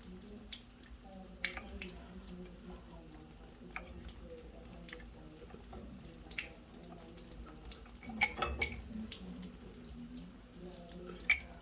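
Scattered light metallic clicks and knocks of a monkey wrench working on a water heater's pipe fittings, over a steady low hum. The loudest cluster of knocks comes about eight seconds in, and another comes near the end.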